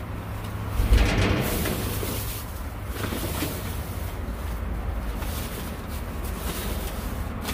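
A thump about a second in, then rustling and handling noise over a steady low rumble.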